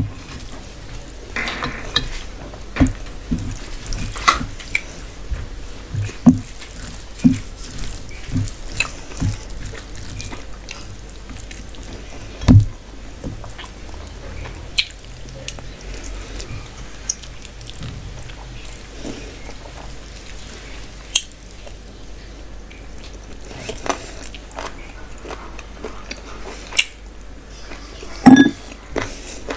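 Close-miked wet eating sounds of a person chewing rice and mutton curry eaten by hand: irregular lip smacks, moist clicks and chewing noises, with the soft squish of fingers mixing rice.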